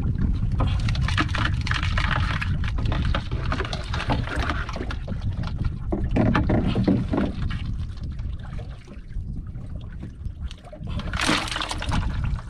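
Wind buffeting the microphone, with rustling from a nylon crab net being handled and a splash near the end as a blue crab is dropped into a bucket of water.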